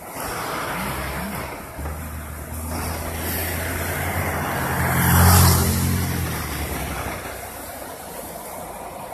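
A motor vehicle's engine passing close by, growing louder to a peak with a hiss about five seconds in, then fading away.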